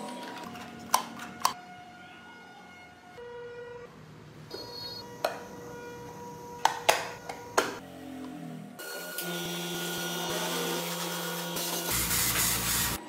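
A few sharp clicks of small wooden parts, such as the model's doors and hatch being opened and shut. From about nine seconds, a steady hiss of a spray gun with a low hum beneath it, louder than the clicks.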